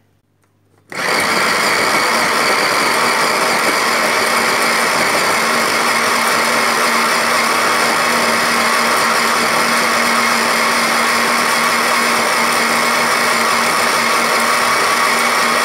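Electric food chopper's motor running steadily at full speed, its blade chopping boiled carob pods in their cooking water; it switches on about a second in.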